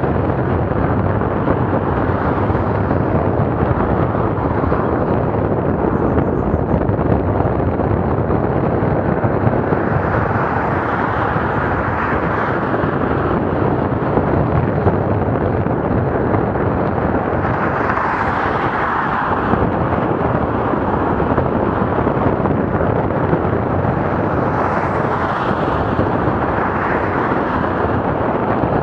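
Steady rush of wind and road noise on a bicycle-mounted camera's microphone while riding, swelling three times: about a third of the way in, a little past halfway, and near the end.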